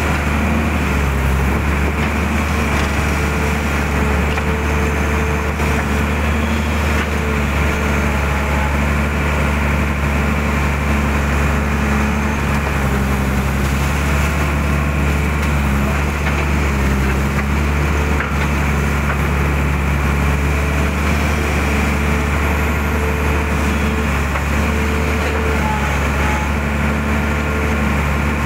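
Mitsubishi hydraulic excavator's diesel engine running steadily while it digs mud out of a ditch, its pitch dipping and rising slightly a few times.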